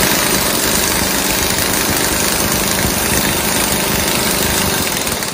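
Hans 86110 3/4-inch-drive twin-hammer air impact wrench running flat out against a torque-test joint, trigger held down. Its rapid hammer blows blend into one loud, steady, continuous din along with the air exhaust.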